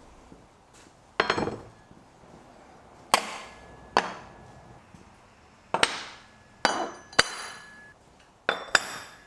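Heavy steel parts (four-bolt flange bearings, chain sprockets and a keyed shaft) set down one by one on a steel-topped workbench: about eight separate metal clanks, several leaving a short ringing tone.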